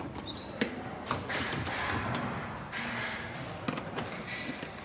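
A door being handled: a few scattered light knocks and clicks.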